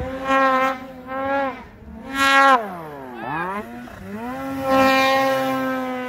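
Snowmobile engine revving in deep powder: three short bursts of throttle in the first two and a half seconds, a drop in pitch about three seconds in, then a longer run held at high revs.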